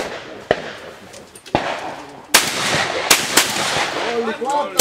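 Shotguns firing at clay targets: lighter reports in the first second and a half, then three louder shots between about two and a half and three and a half seconds in.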